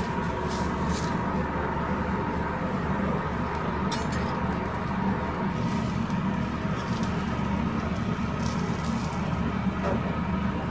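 Steady low drone of commercial kitchen equipment with a faint steady whine, and a few brief scrapes of a metal spatula on the flat dosa griddle as the layered dosa is lifted.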